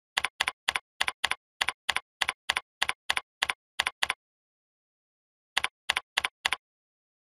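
Keystroke clicks of typing on a computer keyboard: a steady run of about three sharp clicks a second for about four seconds, then after a pause of a second and a half a short burst of four more.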